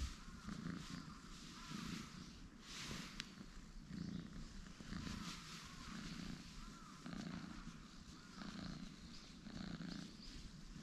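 Orange tabby cat purring while being stroked on the head, a low, fairly faint purr that pulses with each breath.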